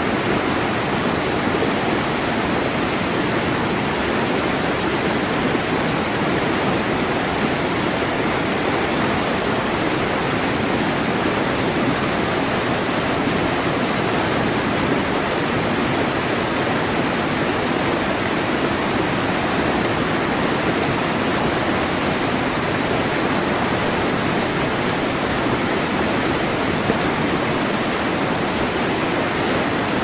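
Waterfall: a steady, loud rush of falling water.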